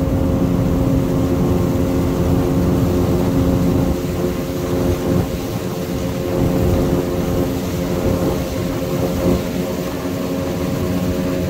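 Outboard motor with a water-jet drive running steadily at planing speed: a constant drone with even tones and a low rumble underneath.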